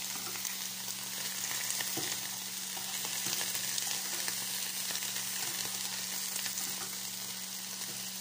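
Leafy greens sizzling in a frying pan, with a utensil now and then scraping and ticking against the pan as they are turned. A steady low hum runs underneath.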